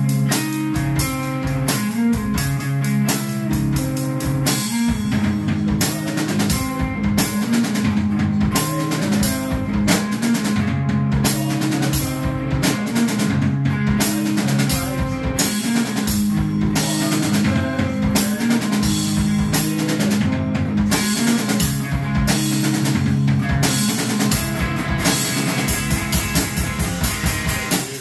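Electric guitar through a small amp playing a repeating low rock riff with a full acoustic drum kit, played live together; the drumming gets busier about four or five seconds in.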